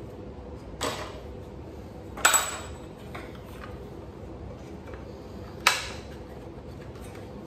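Three sharp metal clinks from hands-on work at the front of a Subaru WRX engine as its timing belt is worked off: one about a second in, a louder one with a short ring a little after two seconds, and one near the end. A faint steady hum lies underneath.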